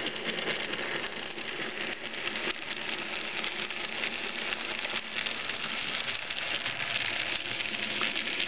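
N gauge model passenger train running along the track: a steady whirring hiss from its small motor and wheels, with light clicking of the wheels over the rail joints.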